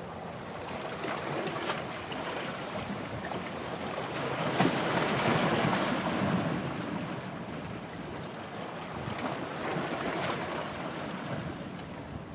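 Sea surf washing in with wind buffeting the microphone, swelling loudest about five seconds in and again near ten seconds.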